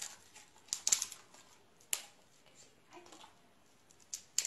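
Golden retrievers' claws clicking and tapping on a hard wood floor as they shift about: a handful of separate sharp clicks, the loudest cluster about a second in.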